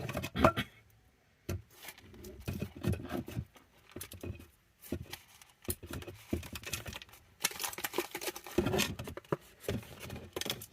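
Damp substrate being scooped by hand and dropped into a container: irregular rustling, scraping and crunching handling noises in uneven bursts.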